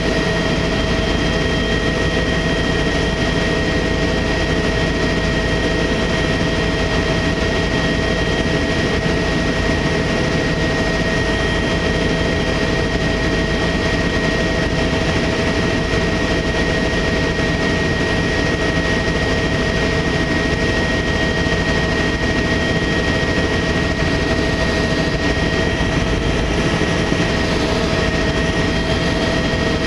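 Tour helicopter in flight, its turbine engine and rotor running at a steady, unchanging level, a constant noise with a high whine held on one pitch.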